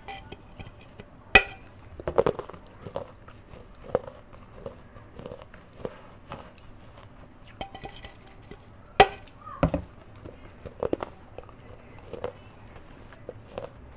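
Biting into the rim of an unglazed terracotta clay pot and chewing the pieces, close to a lapel microphone: two sharp cracks, about a second in and about nine seconds in, each followed by a run of crunchy chews.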